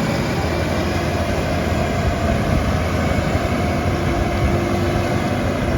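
Combine harvester running, a steady dense mechanical rumble of engine and machinery with no breaks.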